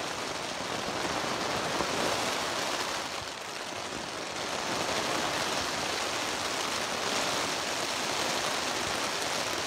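Heavy rain falling on the Dyneema (DCF) canopy of a Zpacks Duplex tent, heard from inside the tent as a steady hiss.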